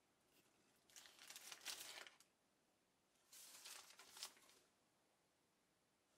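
A blade trimming excess resin-coated mesh cloth from the toe of a cricket bat: two short bursts of scraping and crackling, about a second each.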